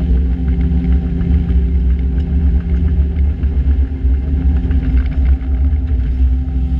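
Diesel engines of a Hyundai Robex 220LC-9A excavator and a Terex TA9 site dumper running steadily at work, with light clatter over the engine sound.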